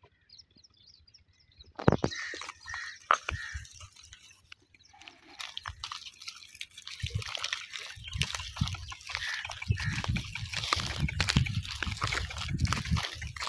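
A donkey walking under a rider on dry, stubbly ground: irregular hoof knocks and scuffs begin about two seconds in. A rustling, rumbling noise like wind on the microphone builds from about eight seconds in.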